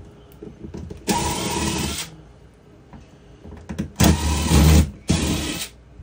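Cordless drill-driver running in three short bursts, about a second each, the last two close together near the end, backing screws out of the RV slide-out trim.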